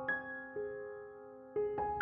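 Background piano music: a few slow notes struck and left to ring and fade.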